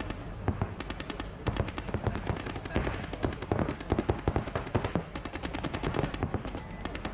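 Paintball markers firing in rapid strings of many shots a second, the volleys overlapping, with a couple of brief lulls.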